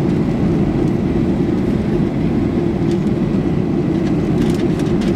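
Cabin noise of a Boeing 737-800 in flight, heard from a seat over the wing: the steady roar of its CFM56-7B turbofan engines and the airflow, deep and even, with a few faint ticks near the end.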